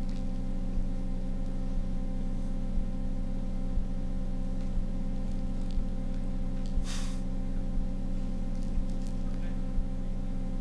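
Steady electrical hum from the hall's sound system, with a faint tick about once a second and a short burst of hiss about seven seconds in.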